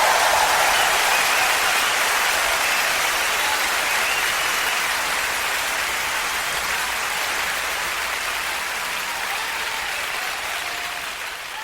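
Audience applauding: a dense, even clatter of many hands clapping at once, gradually growing quieter.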